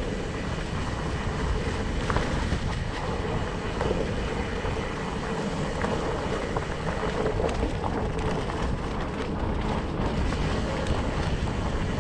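Mountain bike rolling fast along a dirt singletrack: a steady noise of knobby tyres on dirt and the bike's rattle over the ground.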